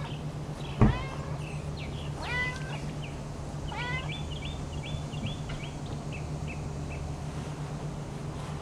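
Domestic cat meowing three times while being petted, with a thump at the first meow. A run of short, high chirps follows.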